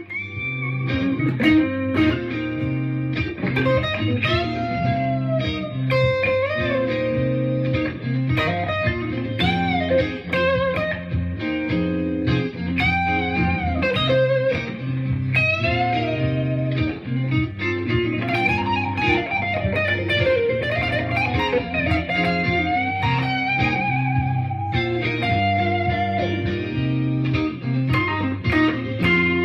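Electric guitar playing a blues lead with string bends and vibrato over a looped C minor blues chord backing.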